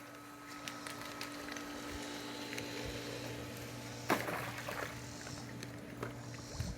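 A pool cleaner is lowered into the pool, with a splash of water about four seconds in and another small one near the end, over a steady low hum.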